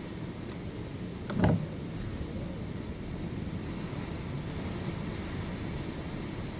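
Storm wind heard from inside a house: a steady low rumble, with one short, sharp thump about a second and a half in.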